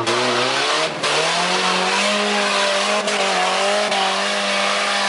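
GAZ-69's UMZ-4216 four-cylinder petrol engine revving hard under load as the off-roader climbs through deep mud. Its pitch rises over the first two seconds, then holds high and steady over a hiss.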